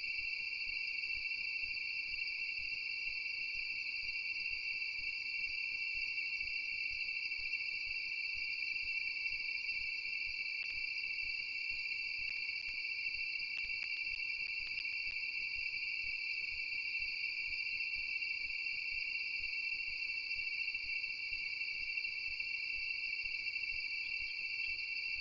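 Steady, high-pitched chorus of night insects such as crickets, holding the same pitch throughout with no pauses.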